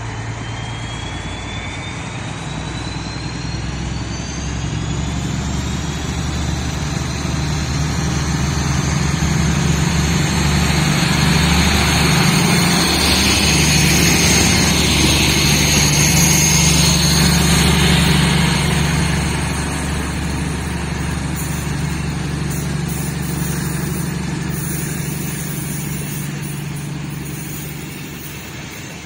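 Two DB class 218 diesel-hydraulic locomotives with MTU 12-cylinder TB 11 engines pulling an InterCity train away from a stop: the engines work hard under load with a rising whine in the first few seconds. The sound grows loudest as the locomotives pass about halfway through, then eases as the coaches roll by.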